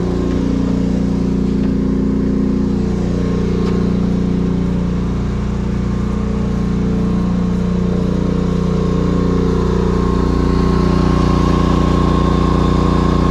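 Genmax GM10500iETC tri-fuel inverter generator, a 458 cc four-stroke air-cooled engine, running steadily on propane under heavy load of about 6.4 kW. The hum is steady and grows a little louder from about ten seconds in as the generator is approached.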